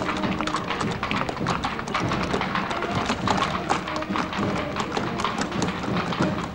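Horses' hooves clip-clopping on cobblestones as they pull a carriage, a dense run of irregular knocks, with music faintly underneath.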